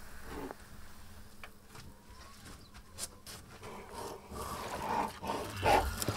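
An animal sound effect, louder in the second half, with a few sharp clicks in the first half.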